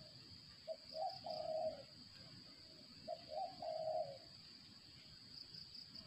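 Spotted dove cooing: two phrases about two seconds apart, each a couple of short notes running into a longer coo, over a steady high insect drone.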